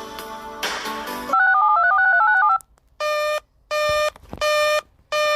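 Background music ends, followed by a loud, fast warble of electronic tones and then about four short, buzzy beeps of one pitch at uneven spacing: the alert-tone sequence that leads into an emergency alert bulletin.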